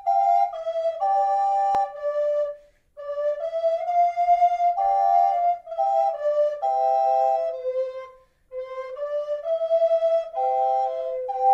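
Flutes playing a simple melody in two parts, in short phrases with brief pauses between them, and a single click about two seconds in.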